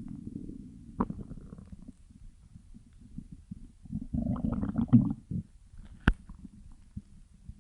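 Stomach growling: low, gurgling rumbles, swelling into a louder stretch of gurgles about four seconds in. A sharp click about a second in and another about six seconds in.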